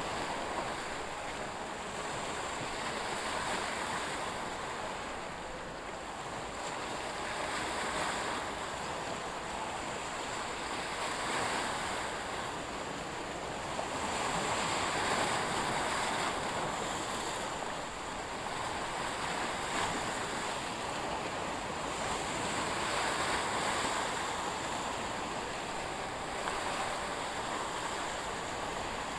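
Sea waves washing in, a steady rush that swells and eases every few seconds.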